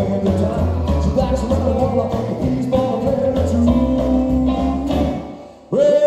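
Live rockabilly band playing: upright double bass, acoustic and electric guitars, drums and male lead vocals. Near the end the band cuts out briefly, then the singer comes back in on a long held note.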